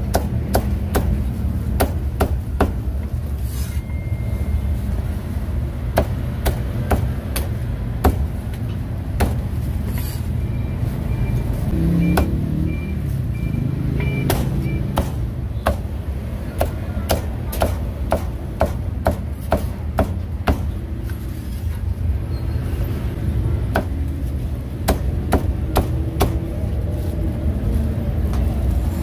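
Meat cleaver chopping roast duck and roast pork on a thick wooden chopping block: sharp knocks at an uneven pace, with runs of quick chops, over a steady low background rumble.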